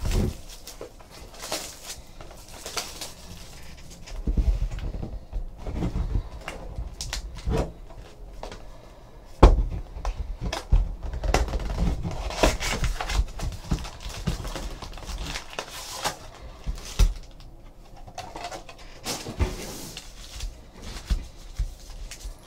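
Unboxing a sealed trading-card hobby box by hand: plastic shrink wrap crinkling and tearing, the cardboard box being opened and the foil card packs handled and stacked, as irregular rustles with many small clicks and knocks. The loudest is a sharp knock about nine and a half seconds in.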